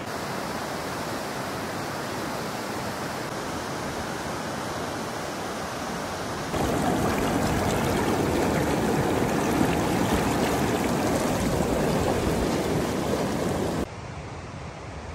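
Fast-flowing mountain river rushing steadily. About six and a half seconds in it becomes much louder and closer, heard right at the water's surface, then near the end it drops suddenly to a fainter, more distant rush.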